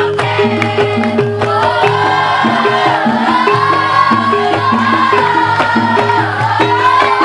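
Music with drums and a repeating pattern of short, struck, pitched notes, and a long wavering melody line that comes in about a second and a half in.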